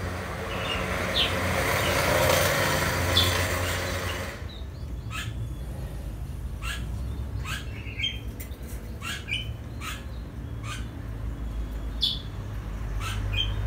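Caged songbirds giving short, sharp chirps and chips at irregular intervals. A steady rushing hiss runs under them for the first four seconds or so and then stops suddenly.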